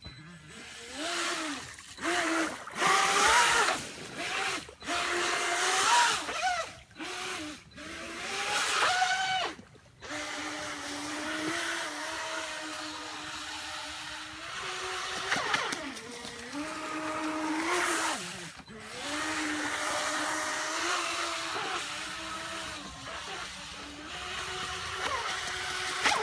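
Brushless electric motor and water-jet pump of an RC jet boat whining. Its pitch rises and falls in short throttle bursts for the first ten seconds or so, then it runs at a steadier high pitch with a few brief dips.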